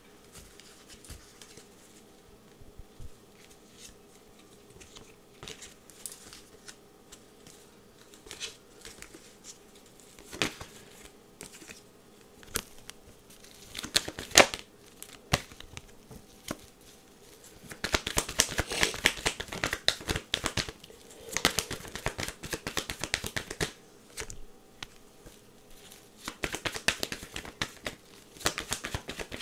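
Tarot cards being shuffled and handled: scattered flicks and slaps of cards, with two longer stretches of quick shuffling, the first past the middle and the second near the end.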